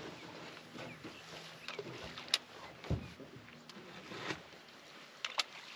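Scattered light clicks and knocks on an aluminium fishing boat as an angler casts and works a spinning reel, with a low thump about three seconds in.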